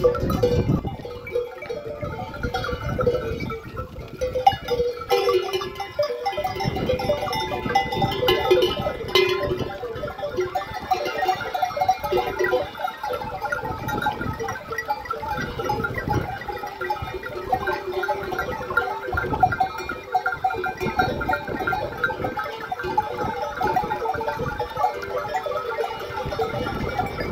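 A large mixed flock of sheep and goats bleating continuously, many voices overlapping.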